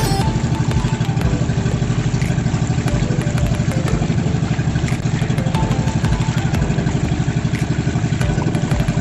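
Engine of a motorised outrigger boat (bangka) running steadily under way, with a fast, even putter.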